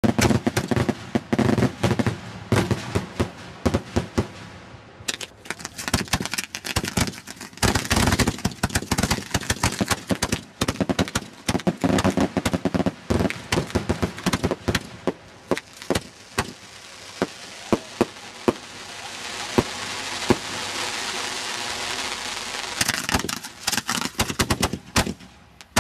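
Fireworks finale: a rapid volley of mortar launches and aerial shell bursts, dozens of sharp bangs, with a long spell of steady hiss in the second half. Near the end a 6-inch shell bursts on the ground instead of in the air.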